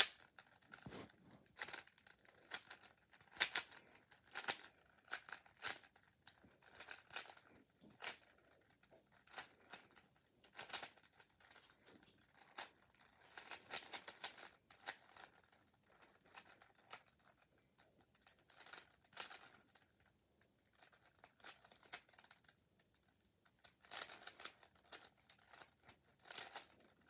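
Plastic 3x3 Rubik's Cube being turned by hand: irregular runs of clicks and clacks as its layers snap round, with short pauses between moves.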